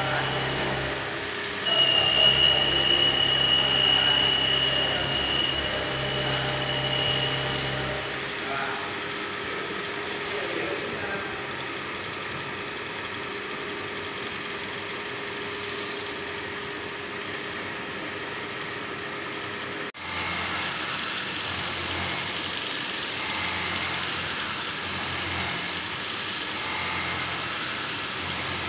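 Machine-shop noise from CNC machines running: a steady mechanical hum with a high whine for a few seconds near the start, then a run of short high beeps in the middle. The sound changes abruptly about 20 s in.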